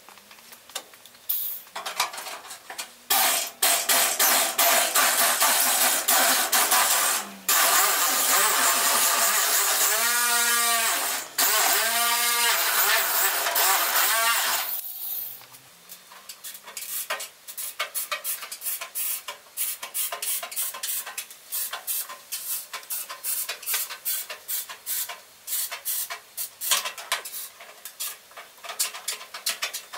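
Small electric angle grinder working the sheet-steel edge of a wheel arch in three long bursts, its pitch shifting as the load changes. After that, a run of light, irregular metallic clicks and taps from hand work on the panel.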